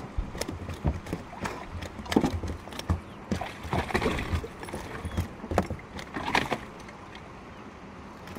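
Irregular knocks, taps and rattles of gear being handled aboard a small fishing boat, a few sharp strikes a second over a steady background hiss.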